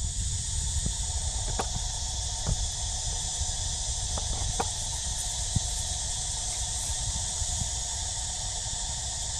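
Steady chorus of insects, a high even buzz that does not change, over a low rumble, with a handful of faint clicks.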